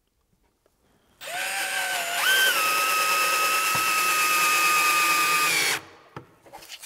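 Power drill running under a timber stair tread for Kreg Jig pocket-hole joinery. It starts about a second in, speeds up a moment later, holds a steady pitch and stops suddenly near the end, followed by a few light knocks.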